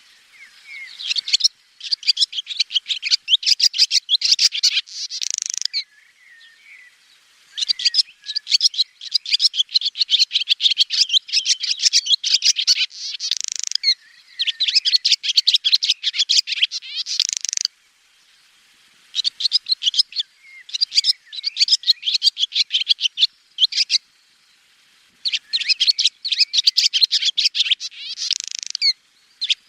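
Swallow twittering: fast chattering runs of high chirps and trills, in bouts of a few seconds each with short pauses between them.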